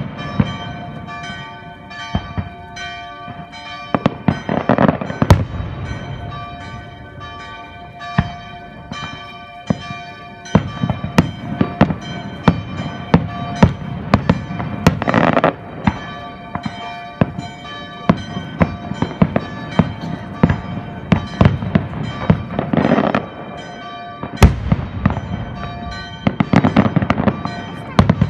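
Fireworks going off over a city, a continual string of sharp bangs with several spells of dense crackling. Church bells ring steadily underneath.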